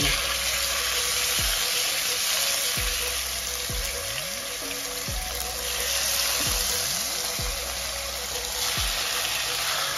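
Marinated chicken pieces frying in hot oil in a pan, a steady loud sizzle, over background music.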